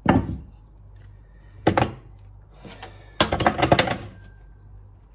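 Kitchen items handled and set down on a countertop: a sharp thunk at the start, another knock a little under two seconds in, then a rattling clatter of several quick knocks around three to four seconds in.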